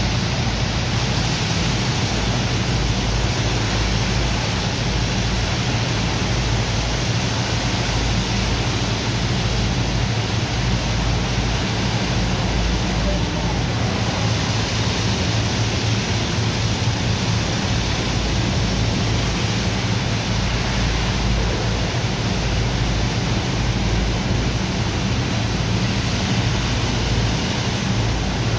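High-pressure water jets from hoses spraying onto a heap of sand, washing it into slurry: a steady rushing hiss. Underneath runs a steady low machine drone.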